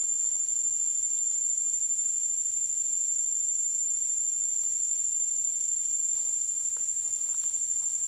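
Steady, unbroken high-pitched insect drone that fills the forest, with a few faint rustles of footsteps in grass late on.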